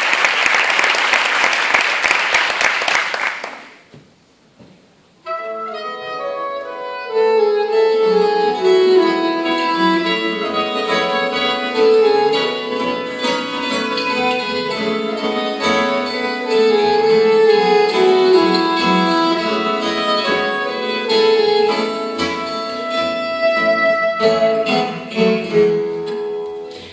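Audience applause that dies away in the first few seconds, then after a short pause a small acoustic band starts up: piano and acoustic guitars with a held melody line over them.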